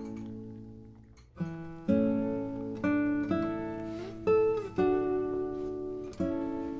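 Acoustic guitar music: plucked chords that ring and die away, fading for about a second before the playing picks up again, with one note sliding down in pitch in the middle.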